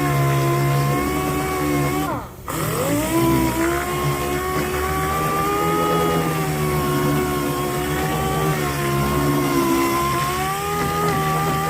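Power sander running steadily while sanding a car fender. About two seconds in it is switched off briefly and spins down, then comes back up to speed, and it starts spinning down again right at the end.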